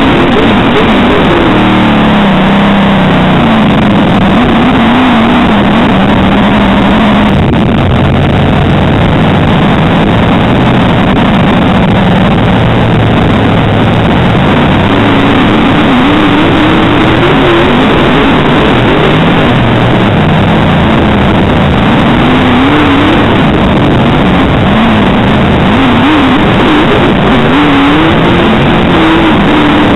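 Dirt modified race car V8 engine at racing speed, very loud throughout, its pitch rising and falling again and again as the throttle opens and lifts.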